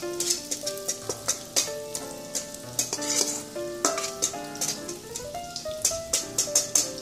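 Cornbread batter sizzling in hot oil in a 10-inch cast-iron skillet while a spoon scrapes the last of it from a metal mixing bowl. The scrapes come as many short, sharp strokes. Music plays underneath.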